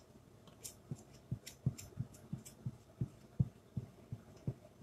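Soft low thumps, about three a second, from a hand rubbing and pressing an adhesive silkscreen transfer down onto a chalkboard sign, with a few faint clicks.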